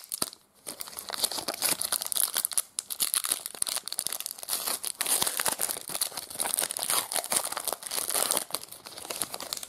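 Foil trading card pack wrapper being torn open and crinkled by hand: a dense crackling that stops briefly just after the start and again a few seconds in.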